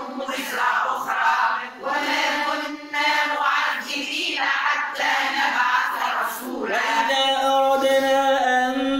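Several voices reciting Quranic verses together in a chanted melody, a Quran memorisation chorus. About seven seconds in, a single man's voice takes over with a steadier, held recitation.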